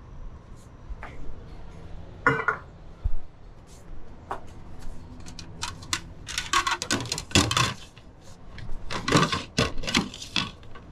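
Kitchen clatter of bowls and utensils during noodle-soup preparation. A few separate knocks and clinks come in the first half, then two busy runs of clattering in the second half.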